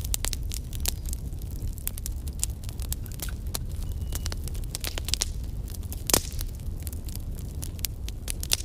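Crackling fire sound effect: a steady low rumble with frequent irregular sharp pops and crackles, one pop standing out louder about six seconds in.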